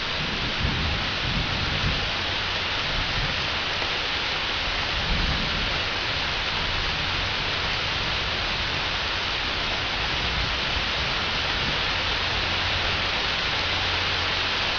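Steady heavy rain falling during a thunderstorm, with thunder rumbling low underneath and swelling a couple of times.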